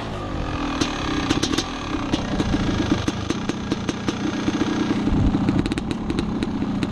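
Dirt bike engine idling steadily, with scattered sharp clicks over it.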